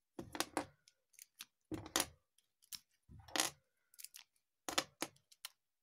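Plastic LEGO bricks clicking and clacking as they are pried off the frame around a set gelatin mould and put down on the table: sharp clicks and short knocks in four or five clusters, roughly a second and a half apart.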